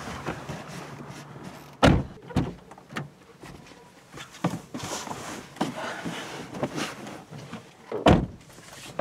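Car door handled: two knocks about two seconds in, softer shuffling and knocks of someone getting into the seat, then the door shut with a loud thump near the end.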